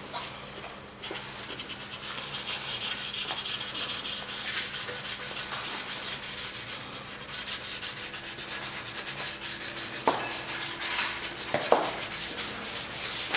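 Abrasive pad scrubbed by hand back and forth over a wet metal plate, a steady run of quick scratchy strokes. There are a couple of sharper knocks near the end.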